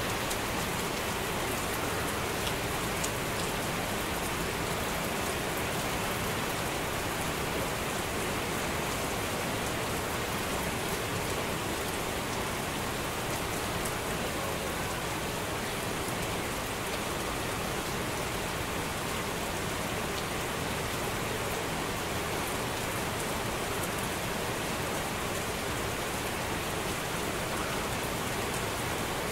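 Heavy rain falling steadily on leaves, trees and a concrete building: a dense, even hiss with scattered sharp drop hits.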